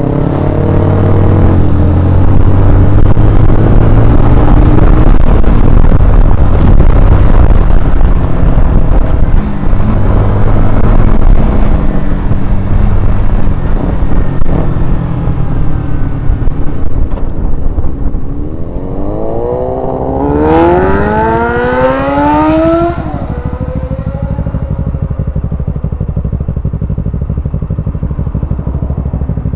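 Motorcycle ride heard from on the bike: steady wind rush and engine running throughout. About nineteen seconds in, a motorcycle engine revs hard with a rising whine for about three seconds, then cuts off suddenly.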